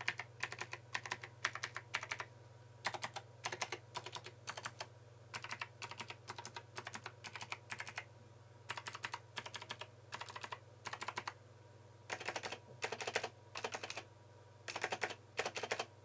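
Typing on a Logitech G Pro mechanical keyboard with GX Blue clicky switches: quick runs of sharp clicking keystrokes separated by short pauses, the runs longer and louder near the end.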